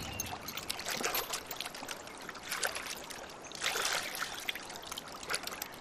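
Wooden river boat being poled through calm water: irregular small splashes and trickles from the poles over a low watery hiss.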